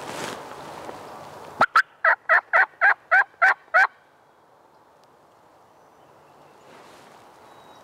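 A run of about nine evenly spaced turkey yelps, roughly four a second, lasting a little over two seconds.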